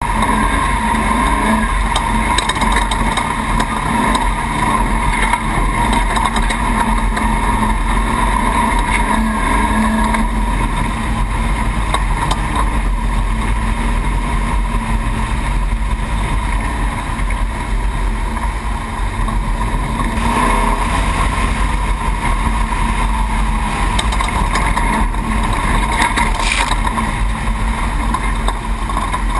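Desert race truck's engine running steadily at speed, mixed with wind and chassis noise, with two brief knocks in the last third.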